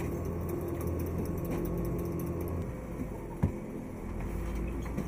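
Clay brick extrusion machine running with a steady mechanical hum that drops in level about two and a half seconds in. A single sharp knock comes about a second later, louder than the machine.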